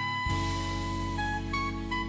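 Jazz-style music with a saxophone melody, one long held note followed by shorter moving notes, over a sustained backing.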